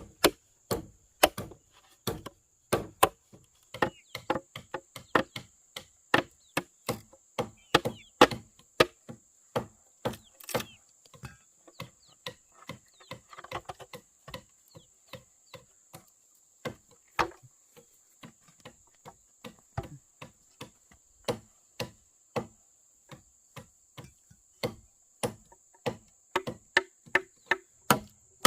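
Irregular series of sharp chopping strikes on wood, about one to two a second, with a short pause partway through.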